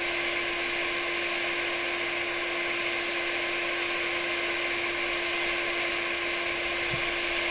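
iTeraCare terahertz blower wand running steadily: its small built-in fan gives a constant, loud whir, with a steady hum over an airy hiss.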